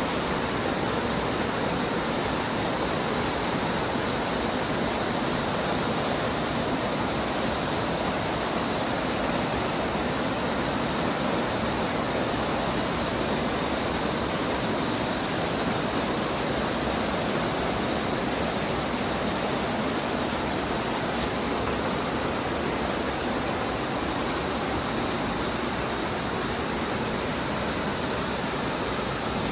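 A waterfall in high flow after rain, its water rushing and falling in a steady roar with no let-up. A faint steady high tone runs beneath it.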